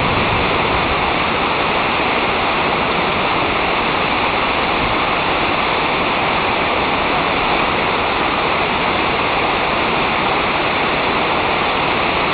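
Waterfall: a steady, loud rush of falling water with no breaks or changes.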